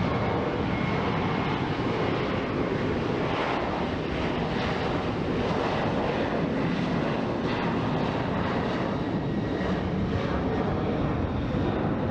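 Jet airliner engines at high power as it departs, a steady, even noise that holds its level throughout.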